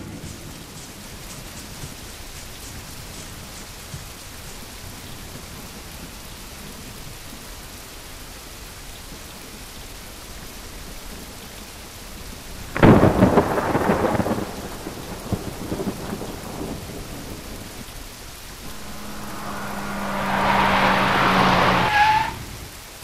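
Steady heavy rain, with one sudden thunderclap about halfway through that rumbles away over a couple of seconds. Near the end a car drives up through the rain, its engine and the hiss of wet tyres growing louder.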